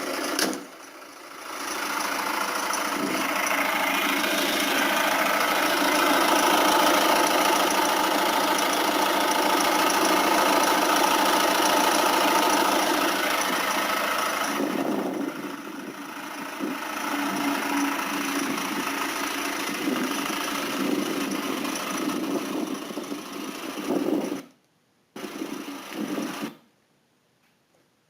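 Peugeot 407's 1.6 HDi four-cylinder diesel engine running with the abnormal engine noise that its owner wants diagnosed. The sound drops out briefly near the end, then stops.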